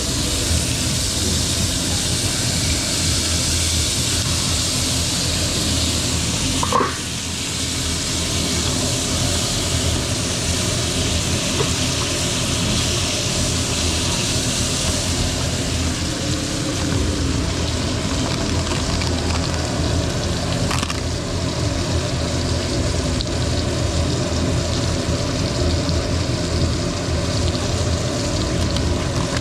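Bone-in chuletón steak sizzling steadily in a frying pan with butter, with a single knock about seven seconds in.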